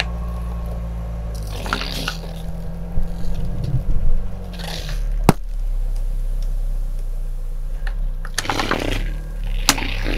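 Plastic Coca-Cola bottles crackling and crunching under a slowly rolling car tyre, with a sharp pop about five seconds in as one bottle bursts and cola gushes and foams out. The car's engine runs steadily and low underneath.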